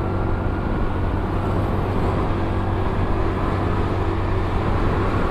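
Honda Beat scooter's small engine running steadily, with a constant rush of road noise.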